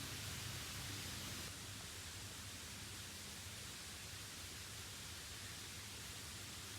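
Faint steady hiss with a low hum underneath, slightly brighter for the first second or so.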